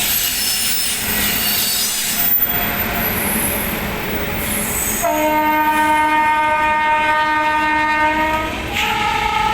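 Passenger train departing, with wheel squeal and rumble from the coaches. About five seconds in, the locomotive's air horn sounds one long steady blast lasting about three and a half seconds. A second horn blast at a different pitch follows straight after, near the end.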